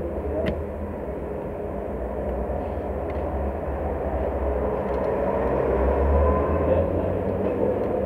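Steady low rumble and hiss of background noise, growing a little louder toward the end, with one faint click about half a second in.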